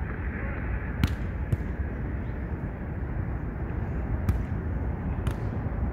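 Volleyball being hit back and forth in a beach volleyball rally: four sharp smacks, two close together about a second in and two more near the end, over a steady low rumble.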